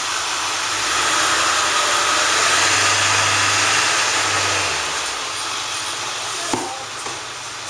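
A motor vehicle passing by: engine hum and road noise swell and then fade away. A short knock follows near the end.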